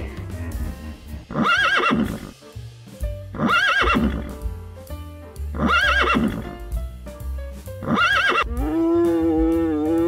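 A horse whinnying four times, about two seconds apart, each a high, wavering neigh, over background music with a steady beat. Near the end comes a longer, lower steady call that rises in pitch as it closes.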